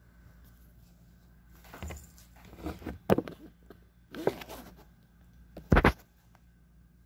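Handling noises of a paper sewing pattern pinned to fabric: scattered rustles and clicks, with a louder knock near the end.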